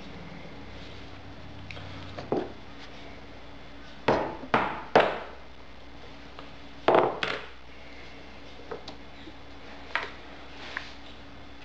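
Hammer blows setting metal studs (rivets) through a leather knife sheath: a couple of light taps, then three hard, sharp metallic strikes in quick succession, two more a couple of seconds later, and a few lighter knocks near the end.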